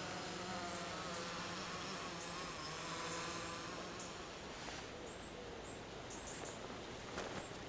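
Faint outdoor ambience: a soft, steady low hum, with short high-pitched chirps repeating from the second half on.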